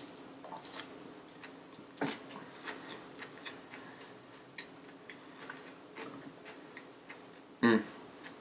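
Chewing a mouthful of romaine lettuce salad, heard as scattered small crunches and wet mouth clicks, with a short hummed voice sound about a second before the end.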